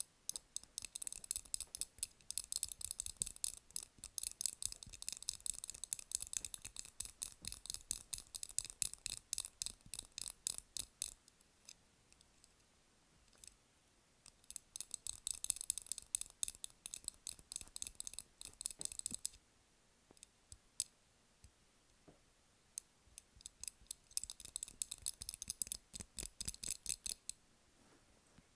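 Rapid tapping on candles: fast, crisp taps in three runs, a long one, a shorter one and a short one near the end, with only a few scattered clicks in the pauses between them.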